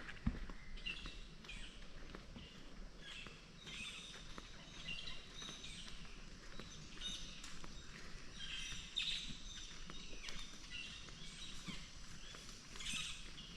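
Small birds chirping and calling, short faint calls every second or so over a quiet steady hiss of outdoor ambience.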